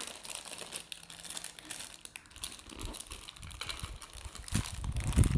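Plastic packaging crinkling and rustling in irregular little crackles as a new set of hair ties is unwrapped and handled. A few dull low thumps come near the end.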